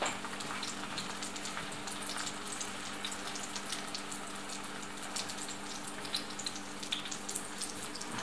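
Eggplant slices coated in flour and egg frying in oil in a pan: a steady sizzle with many small crackles.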